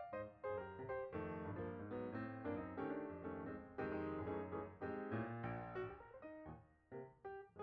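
Background piano music: a melody of separate notes over low sustained chords.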